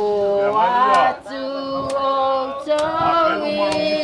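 Men and women singing together in a slow song, holding long notes and moving between them every second or so.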